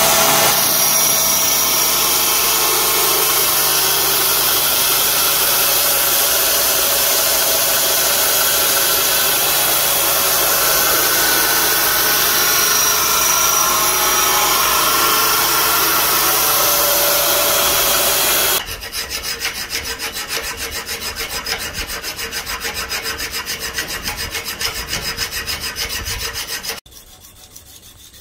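Belt grinder running with a steel knife blade pressed to the abrasive belt, a loud, steady grinding. About 18 seconds in the sound changes abruptly to a quieter rasping with a fast, even rhythm, and near the end it drops again to a faint rubbing.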